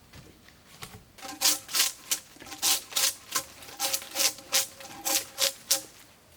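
A hand tool working wood in a quick run of strokes, about three a second, each with a faint metallic ring.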